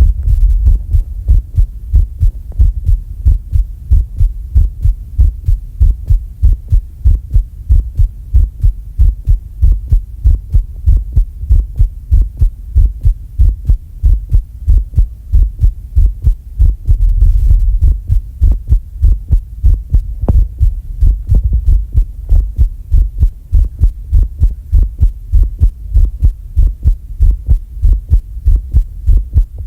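A human heartbeat thumping rapidly and regularly, about two to three beats a second, the racing pulse of a held breath. A brief low rumble breaks in about seventeen seconds in.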